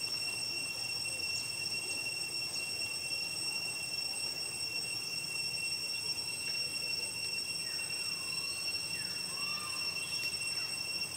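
A steady high-pitched whine with evenly spaced overtones over a low hiss, joined by a few faint short gliding calls from about seven to ten seconds in.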